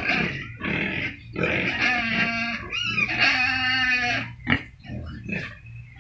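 Several domestic pigs grunting and snuffling in their pen, with two longer, pitched calls about two and three and a half seconds in.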